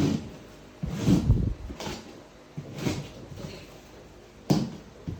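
Handling noises from unboxing an electric scooter: a series of about six knocks and thuds, the longest and loudest about a second in, another sharp one near the end.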